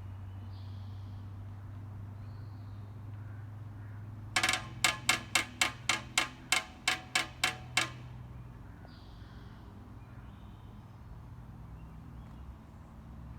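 About a dozen sharp, ringing strikes in quick succession, roughly four a second, starting about four seconds in and lasting about three seconds, over a steady low hum.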